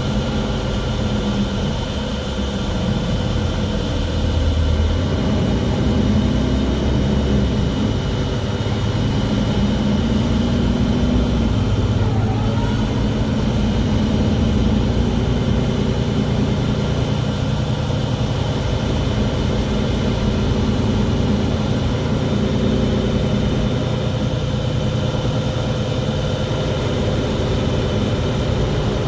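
Mercedes-Benz Citaro G articulated bus running: a steady engine drone with several high, steady whining tones above it. This is the bus's loud strange noise.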